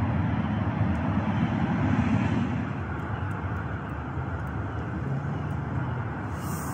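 Steady rumble of road traffic from the surrounding motorway roundabout, swelling slightly as a louder vehicle passes about two seconds in.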